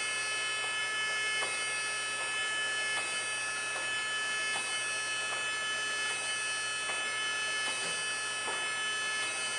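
Chevalier FSG-2A818 hydraulic surface grinder running: a steady whine made of many held tones, with faint ticks scattered through it.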